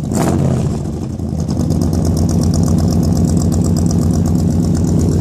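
Ford 390 V8 in a 1979 Ford F-150, revved by foot on the gas pedal. It dips about a second in, then climbs back and holds at raised revs, sounding really awesome.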